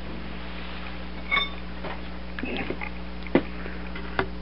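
Light metallic clicks and one short ringing ping from metal being handled, over a steady low hum.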